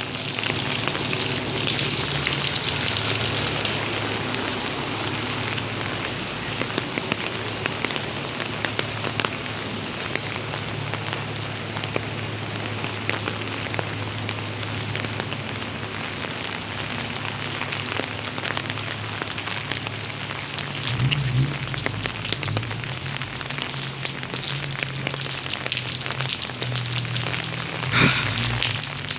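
Pouring rain falling steadily, a dense hiss with many small drop ticks, over a steady low hum.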